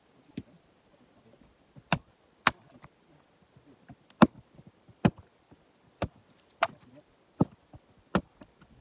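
Axe splitting a jarrah firewood round: about eight sharp chopping strikes, roughly one a second, each a hard crack of steel into the dense hardwood.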